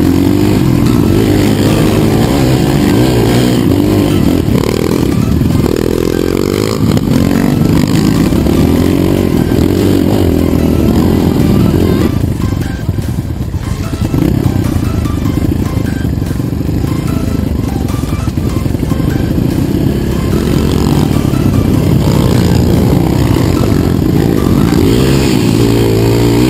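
Dirt bike engine running hard, its pitch rising and falling with the throttle, and easing off briefly about halfway through.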